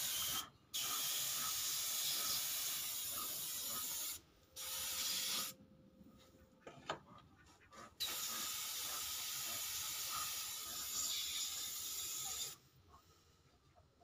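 Compressed-air gravity-feed spray gun hissing in several bursts as the trigger is pulled and released, spraying thinner-based colour onto a wooden bird-cage frame. The longest bursts last a few seconds, with a pause of a couple of seconds near the middle.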